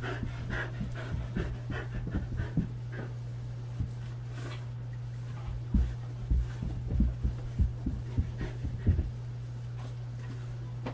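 Dog panting quickly, with a cluster of dull thumps, footfalls on carpet, about halfway through, over a steady low hum.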